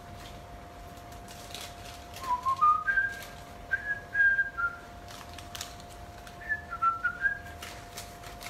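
A person whistling a tune in short stepped notes, starting about two seconds in, over a steady low tone.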